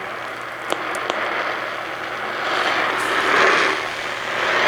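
Steady hiss of radio static with a faint hum underneath and two small clicks about a second in.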